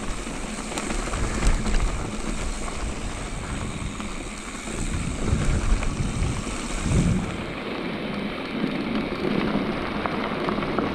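Wind rushing over the microphone and tyres rolling on a dirt trail as a mountain bike descends, with a low rumble and scattered small knocks and rattles from the bike over the bumps. The hiss eases about seven seconds in.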